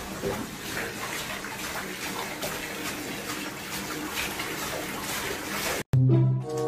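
Bath tap running, water pouring steadily into a filling bathtub. Near the end it cuts off abruptly and brass music begins.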